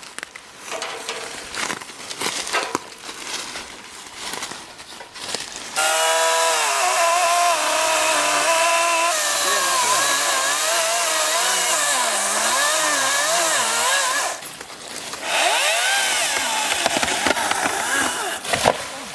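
Electric chainsaw running and cutting, starting about six seconds in after some knocks and rustling. Its motor whine wavers up and down in pitch for about eight seconds, stops, then comes back in a second shorter burst.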